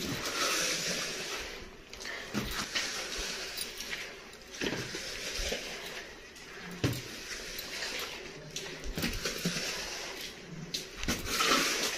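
Floor wiper (squeegee) pushing water across a wet stone-tile floor: a wet swishing scrape, with scattered knocks as the wiper strikes the floor and furniture.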